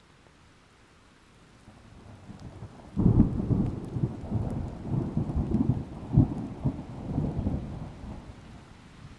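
A roll of thunder. The rumble builds about two seconds in, breaks loudly about three seconds in, and rolls on in uneven low surges before fading near the end.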